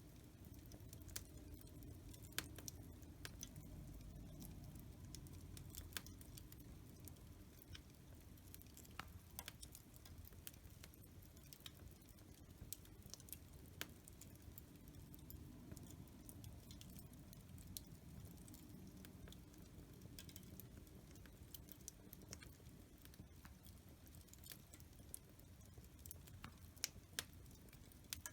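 Quiet fireplace fire crackling: irregular sharp pops and snaps over a low, steady rumble of the flames.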